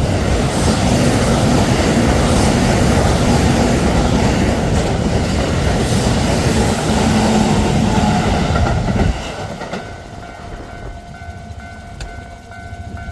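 A Keio Line train passing close by, its wheels clattering over the rails for about nine seconds before the noise drops away sharply as it clears. A level-crossing warning bell keeps ringing steadily underneath.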